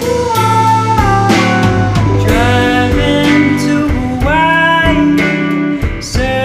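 Background music led by guitar, with a melody that glides between notes over steady bass notes.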